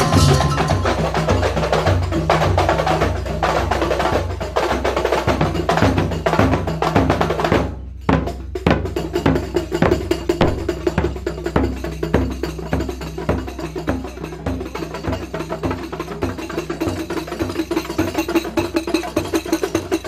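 A group of hand-beaten frame drums (rebana) playing a quick, steady processional beat together, with a deep drum hitting under them. The playing breaks off briefly about eight seconds in, then carries on.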